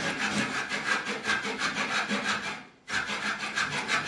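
Small hand saw cutting through the wooden airframe of a large model aircraft in quick, even back-and-forth strokes, stopping briefly a little after halfway. The wood is being trimmed so that the parts fit.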